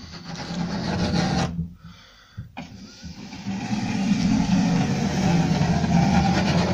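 Pencil scribers dragged along a plastered wall, the pencil rubbing as it marks a scribe line on the desk board. One short scratchy stroke, a pause about a second and a half in, then a longer, louder stroke.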